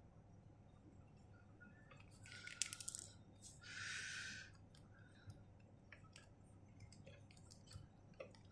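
Near silence with faint handling noise: scattered small clicks and two brief rustles of a plastic action figure and its accessory being turned in the hands.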